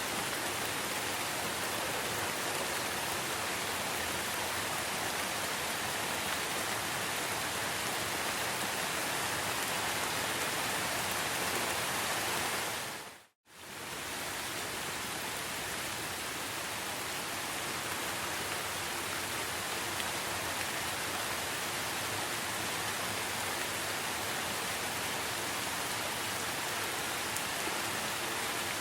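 Steady rain hiss, an even wash with no separate drops standing out. About halfway through it fades out to silence for a moment and fades straight back in.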